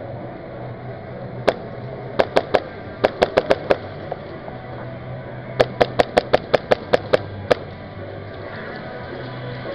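HPA-powered Hi-Capa airsoft pistol firing in quick strings of sharp cracks: a single shot, then three, then six, then a run of about ten rapid shots. A steady hum runs underneath.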